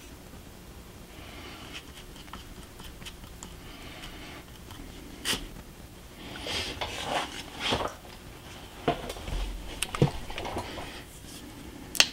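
A paintbrush stirring and scraping around a plastic tub, mixing gray acrylic paint into joint compound, with a few sharp clicks along the way.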